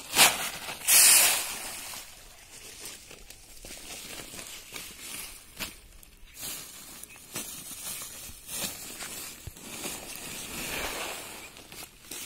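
Plastic fish-feed sacks rustling and crinkling as they are handled and spread out on grass, with two loud crackles in the first second and a half. Near the end, a longer hiss of dry feed pellets pouring out of a sack onto another.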